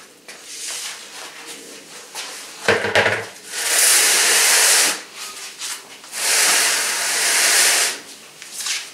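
A car wheel and tire set down on a concrete floor with a knock, then slid under the car in two long scrapes of rubber over concrete, each lasting a second or more.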